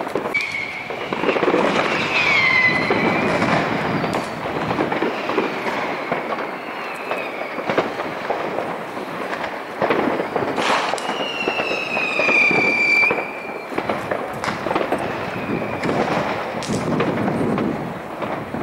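New Year's Eve fireworks going off all around: a steady din of firecracker bangs and crackling, near and far. A falling whistle from a whistling firework cuts through about two seconds in, and a longer one around the middle.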